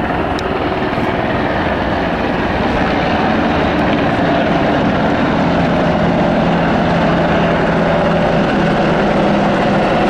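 Military helicopters flying low overhead, their rotors and turbine engines making a loud, steady noise with a low hum underneath.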